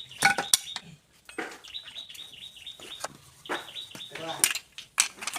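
Small birds chirping in quick repeated runs of high notes, mixed with sharp clicks and knocks.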